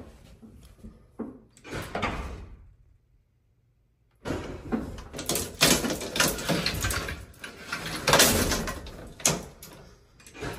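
Manual collapsible metal car gate of an antique elevator being worked shut, rattling and clanking. After a short silent gap, a dense run of loud knocks and clatters starts about four seconds in.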